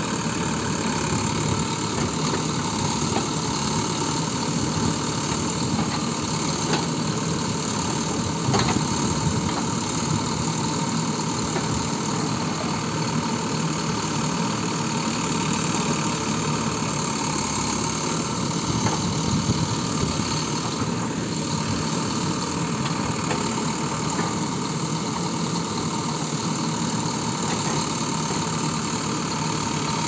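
Mahindra VX backhoe loader's diesel engine running steadily at low revs while the backhoe digs, with a few short knocks.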